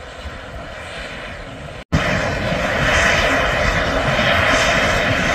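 Mount Washington Cog Railway coal-fired steam locomotive working uphill, a steady noise of chuffing and steam. It breaks off for a moment about two seconds in and comes back much louder and closer.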